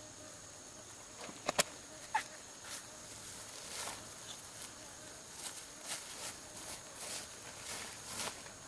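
A woven plastic sack being handled and pulled open: a series of short crinkling rustles, with two sharp clicks about a second and a half in.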